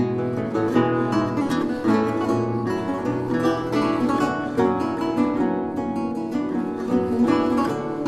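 Two baroque lutes playing a duet, a busy, unbroken stream of quick plucked notes over lower bass notes.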